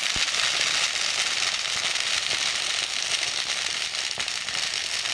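Firecrackers going off in a dense, continuous crackle of many small bangs.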